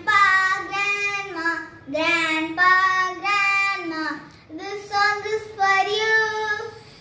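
A young girl singing solo and unaccompanied, in short held phrases with brief pauses between them.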